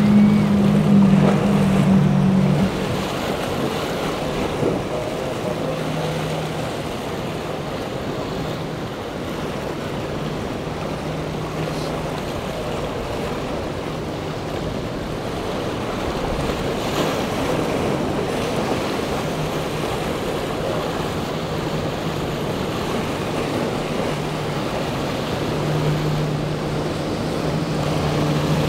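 Rushing surf and spray with wind on the microphone, over the steady drone of boat engines. For the first two or three seconds four outboard motors run hard. After that comes a quieter drone from the twin Volvo Penta IPS 500 diesels of an MJM 43z pushing through breaking swells, which gets stronger near the end.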